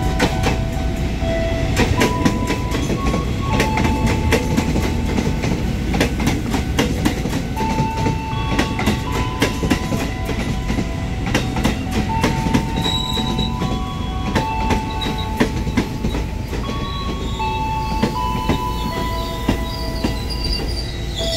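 Tokyo Metro 6000 series electric commuter train rolling slowly past: a steady run of wheel clicks over the rail joints with a low rumble, and short high tones from the wheels and traction motors that change pitch every second or so.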